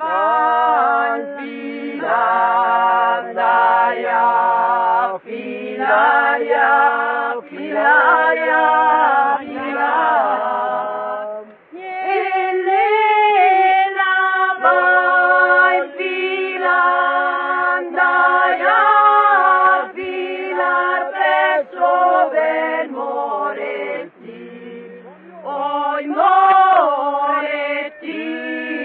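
A group of women singing an unaccompanied traditional folk song in several voices, in long held phrases with short breaks between them.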